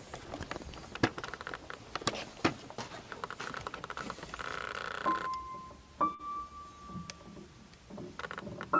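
Single high notes struck one at a time on an old piano, three in all, each a little higher than the last and ringing on for about a second. Before them, scattered knocks and clicks.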